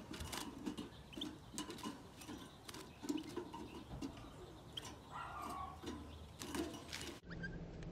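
European goldfinch fluttering inside a wire cage trap as hands handle it, with repeated sharp clicks and rattles from the metal wire cage.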